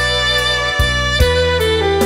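Saxophone playing a slow, sustained melody over a backing track with bass and light drums; the melody steps down through a few lower notes in the second half.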